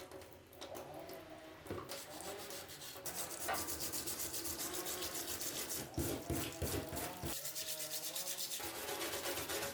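Hand scrubbing of a rusty pocket knife: quiet handling at first, then from about three seconds in a fast, even run of back-and-forth rubbing strokes.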